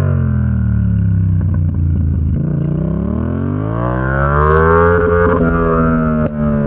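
Yamaha XSR700's 689 cc parallel-twin engine through an SC-Project exhaust under way: the revs fall for about two seconds, then climb for a couple of seconds and hold. A brief dip in the sound comes near the end.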